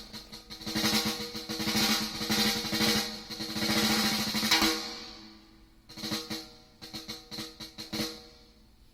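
Drum recording played through a small wooden horn loudspeaker and picked up by a phone about 2 metres away. It opens with fast snare rolls, and about five seconds in breaks into separate drum hits that die away near the end.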